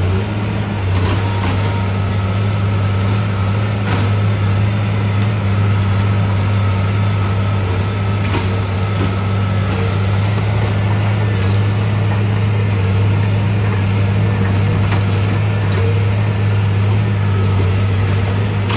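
Diesel engine of a Cat tracked log loader running steadily under load as the machine swings and lifts its boom. A faint high whine is heard through the first half, with a few light knocks.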